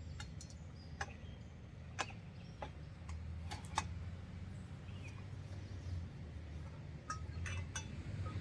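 Scattered light metallic clinks and taps from handling steel trampoline frame parts and bolts, about a dozen, irregularly spaced, over a steady low rumble.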